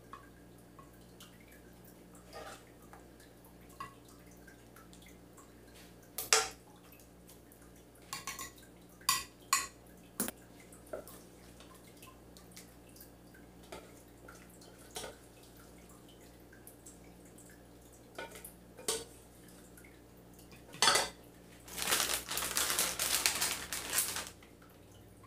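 A metal serving spoon scrapes and taps against a stainless saucepan and a glass baking dish in scattered sharp clicks as macaroni and cheese is spooned in. Near the end comes about two seconds of crinkly rustling as shredded cheese is shaken from a plastic bag.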